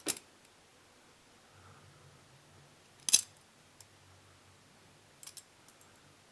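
Stainless-steel-handled trainer balisong being flipped, its handles and blade clacking against each other: a sharp click right at the start, a loud clack about three seconds in, and a few lighter clicks near the end.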